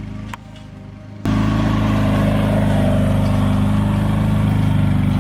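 An engine running steadily at a constant speed; it drops out abruptly about a third of a second in and comes back louder just over a second in.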